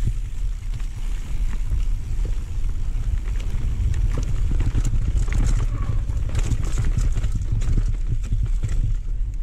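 Wind rumbling on the action camera's microphone as a mountain bike rolls fast down a dirt trail, with the tyres rolling over dirt and pine needles and many sharp clicks and rattles from the bike over bumps.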